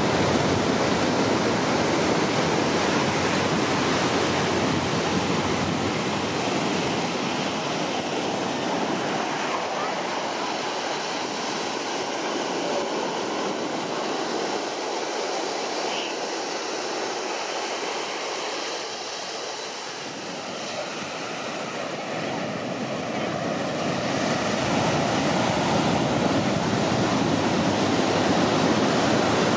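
Ocean surf washing steadily on the beach, easing off about two-thirds of the way through and then building again.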